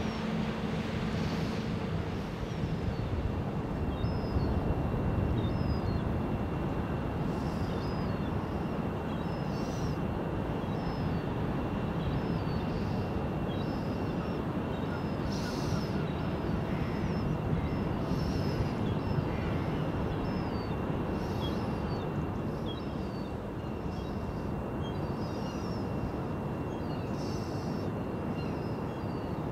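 Steady low outdoor rumble and hiss, with birds giving short high chirps every second or so and a faint steady high-pitched tone.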